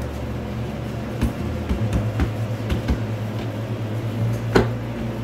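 Steady low hum with soft taps and knocks of hands pressing and handling pizza dough on a floured board, and one sharper slap about four and a half seconds in.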